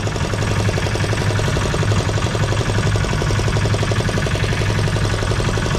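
Boat engine running steadily, a fast even pulsing with a constant low hum.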